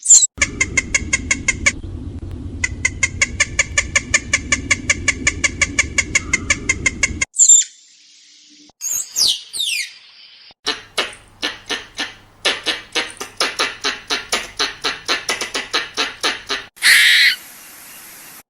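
Squirrel calls in several separate takes: a long run of rapid, evenly repeated chattering chirps, then a short downward-sweeping call, then a second rapid chattering run. A brief harsh burst comes near the end.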